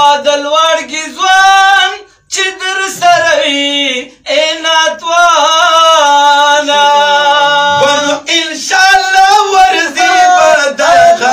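Men singing a Pashto naat unaccompanied into microphones, long held melodic notes with two brief breaks for breath about two and four seconds in.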